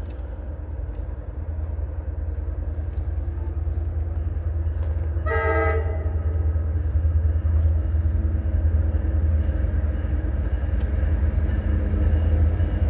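Approaching Metro-North GP40FH-2 diesel locomotive, a low rumble that grows steadily louder. Its horn sounds one short blast about five seconds in.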